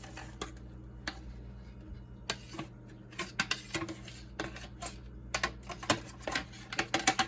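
Irregular clicks and taps of hard plastic as a vacuum cleaner's dust compartment is handled while the last dirt is cleared out of it. They are sparse at first and come in quick clusters over the last few seconds.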